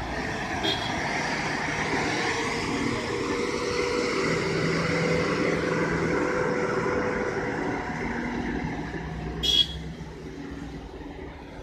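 Heavily laden cargo truck's diesel engine running as it rounds the bend, growing louder toward the middle and fading near the end. Two short horn toots sound over it, a faint one about a second in and a louder one near the end.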